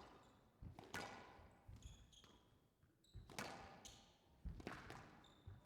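Squash ball being struck by rackets and smacking off the court walls in a rally, a sharp echoing crack about every second, with brief shoe squeaks on the court floor between shots.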